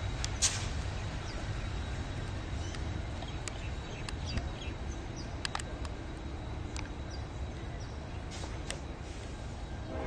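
NR and AN class diesel-electric locomotives running as a light engine, a steady low engine rumble easing slightly as they move away. Scattered short high chirps and clicks sound over it.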